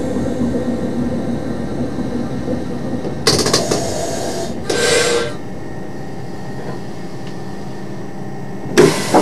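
Class 628 diesel railcar, heard from the driver's cab, rolling slowly to a stop: the running rumble eases off after two short bursts of hissing air, leaving a steady quieter engine idle, with a loud sharp hiss near the end.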